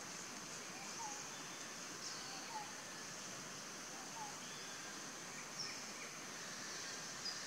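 Forest ambience: a steady high drone, like insects, with a few faint short chirps scattered through it.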